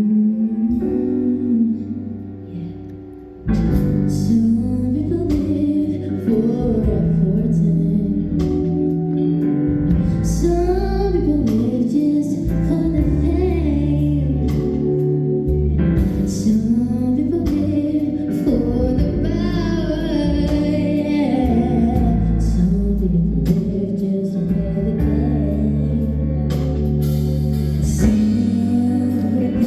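A song with a sung melody over instrumental backing. A held vocal line fades over the first few seconds, then about three and a half seconds in the full accompaniment comes in with a heavy low end and a steady beat.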